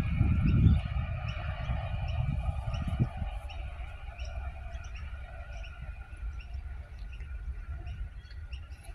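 Adelaide 4000 class electric multiple unit moving away: a low rumble, loudest in the first second, then fading with a faint steady hum. Small birds chirp briefly now and then.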